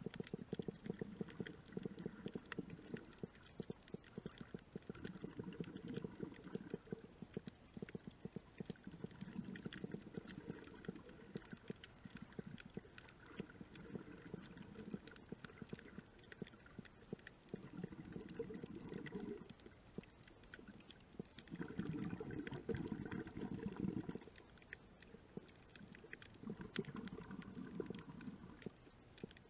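Underwater sound in a shallow reef pool, heard through a camera housing: a constant faint crackle of thin clicks, with muffled low swells that rise and fall every few seconds. The strongest swell comes a little past two-thirds of the way through.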